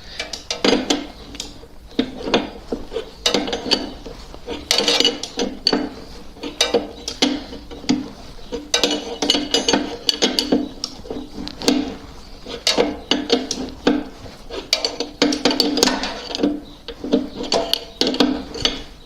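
Metal hand tools clinking and clicking against each other in irregular bursts: a wrench and socket turning the rear axle nut off a Honda VTX1800 motorcycle.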